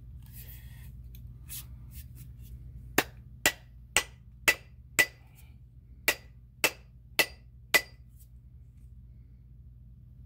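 Nine sharp knocks seat a half-hatchet's steel head onto its new wooden handle: a run of five at about two a second, then, after a short pause, four more. Each knock has a brief ring.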